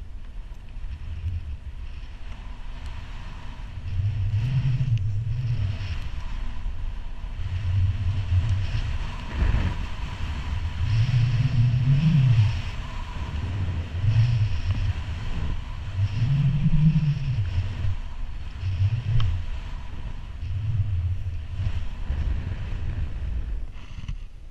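Wind rumbling on an action camera's microphone and skis swishing through deep powder, swelling and easing with each turn about every two seconds. It gets louder about four seconds in, once the run picks up speed.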